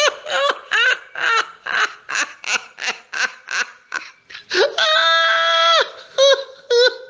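A person's voice making a rapid run of short pitched cries, about two to three a second, with one long drawn-out cry of about a second roughly two-thirds through, then a few more short ones.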